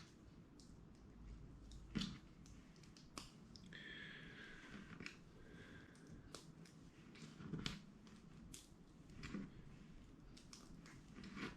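Faint clicks and taps of plastic LEGO Technic pieces being handled and pressed together, with a handful of sharper clicks at irregular times and a brief faint squeak about four seconds in.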